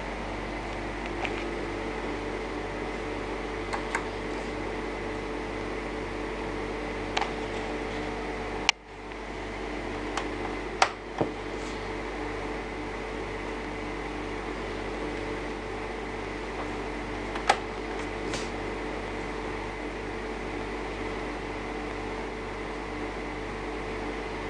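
Steady hum and hiss broken by several short, sharp clicks: the buttons of a Roberts Concerto 2 radio cassette player being pressed as it is switched from CD to SD card mode. About nine seconds in, a louder click is followed by a brief drop in the background noise.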